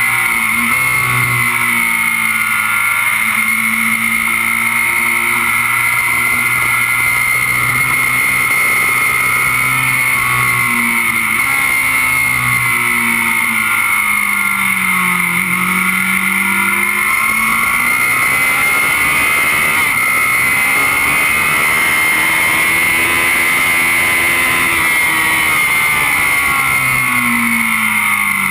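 Kawasaki Z750's inline-four engine running hard at track speed, heard close to its side casing. The engine note falls as the bike slows for a corner about halfway through, then climbs again under acceleration, with smaller rises and falls elsewhere.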